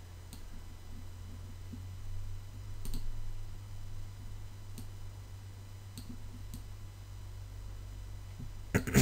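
A few scattered, soft computer mouse clicks over a steady low electrical hum from the recording setup.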